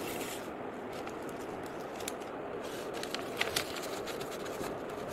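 Stiff card paper rustling as a rolled paper scroll is slid out of its ribbon and unrolled by hand, with a few sharp crackles, the loudest two close together past the middle, over a steady background hiss.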